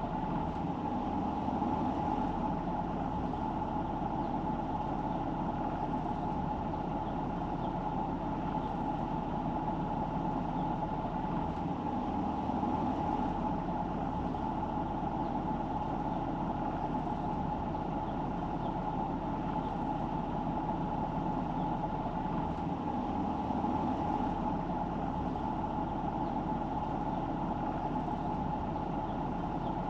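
Steady driving noise of a car under way: engine and tyre noise with a constant mid-pitched hum and no sudden events.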